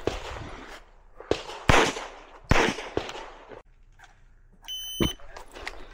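Pistol gunshots, several loud single cracks a second or so apart. About three-quarters of the way in, a shot timer gives its short high electronic start beep, and a shot follows right after it.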